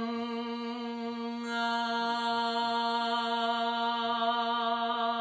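A woman's voice holding one long, steady sung note as a vocal warm-up. It starts as a hummed 'ng' and opens, about a second and a half in, into an open 'ah' vowel with the jaw dropped.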